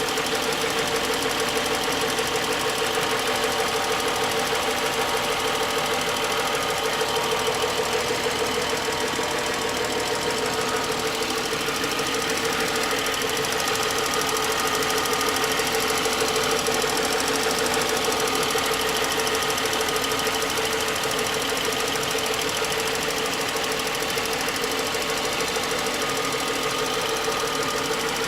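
BMW N55 turbocharged straight-six idling with a steady, rapid knock. The knock sets in a few minutes after a cold start, and replacing the VANOS units with the newer type has not cured it.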